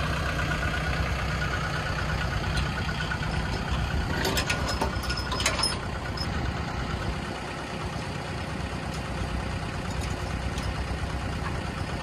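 An engine running steadily at idle, with a cluster of sharp clicks or knocks from about four to five and a half seconds in.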